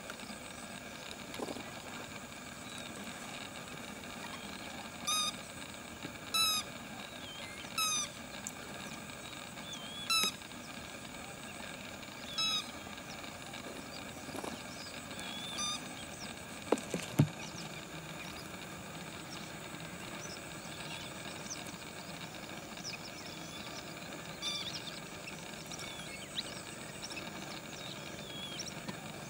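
Lesser whistling ducks giving short, clear whistled calls, five of them spaced a second or two apart in the first half, with fainter high chirps later on. About two-thirds of the way through comes a sudden low thump, the loudest sound here.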